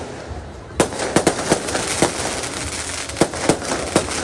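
Fireworks going off: after a brief lull, a dense string of sharp bangs and crackles starts about a second in, several reports a second.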